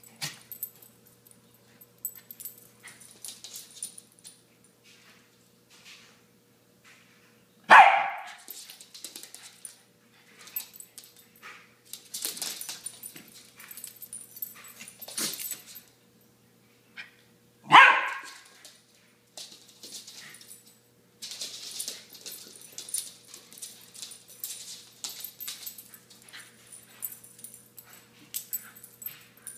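Two small dogs play-wrestling, with scuffling noises throughout and two sharp, loud barks, one about eight seconds in and one about eighteen seconds in.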